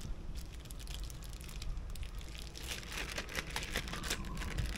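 Plastic zip-top bag crinkling and crackling as it is handled and pinched shut around pieces of raw octopus, many small irregular crackles throughout.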